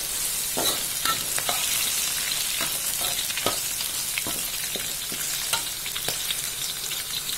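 Shallots, garlic and red and small green chilies sizzling in hot oil in a wok while being stir-fried until the chilies wilt, with a metal spatula scraping and clicking against the pan every half second or so.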